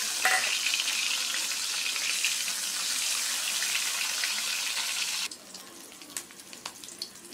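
Two boiled eggs frying in hot oil in a wok: a dense, steady sizzle that drops abruptly about five seconds in to a much quieter crackle with scattered pops.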